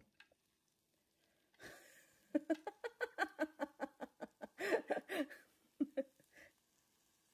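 A woman laughing in a quick run of short breathy pulses, several a second, trailing off into a few last ones.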